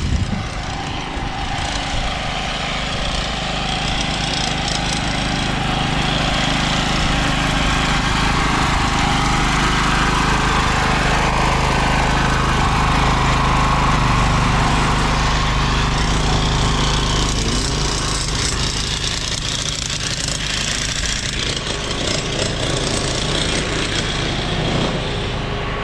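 A motor engine running steadily with a low hum, growing louder toward the middle and easing off again later.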